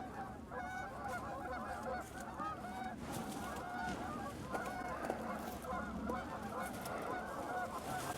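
A flock of Canada geese honking and clucking, many short calls overlapping without a break, as the birds turn in toward the decoys.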